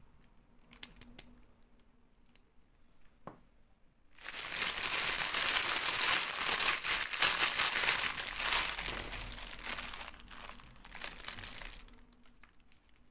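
Thin clear plastic packaging crinkling loudly as a fashion doll is pulled out of its bag, starting about four seconds in and dying down near the end. Before that there are only faint, light clicks of small plastic toy pieces being handled.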